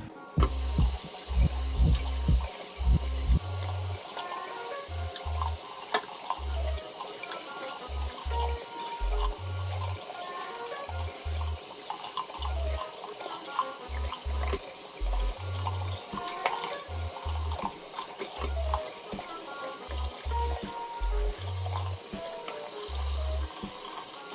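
Faucet water running into a sink and splashing over a plastic disc being rinsed by hand, with background music and its bass line underneath.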